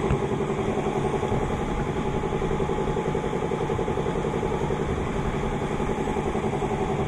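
Steady mechanical drone of running machinery at a water treatment plant: an even, fast-pulsing hum with a constant pitch, like a pump or motor running continuously.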